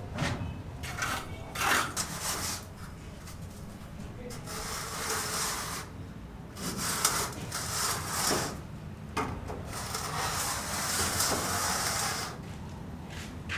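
Several long, rasping scraping strokes of a hand tool worked against a hard surface, each lasting one to three seconds, with short pauses between.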